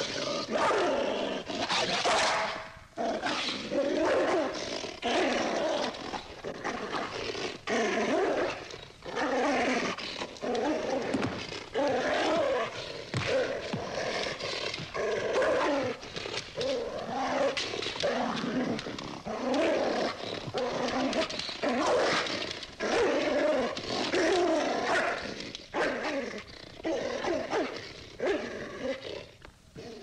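A dog growling in repeated rough bursts, with short breaks between them.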